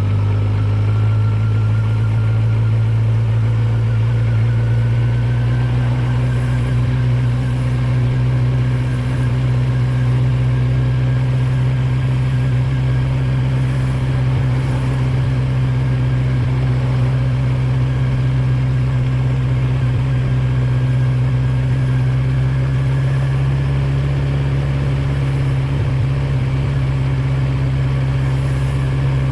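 A 2019 Kawasaki Z900's inline-four, in its 35 kW A2-restricted version, running steadily under way. Its pitch rises a little in the first few seconds and then holds even, over a steady hiss of wind and road noise.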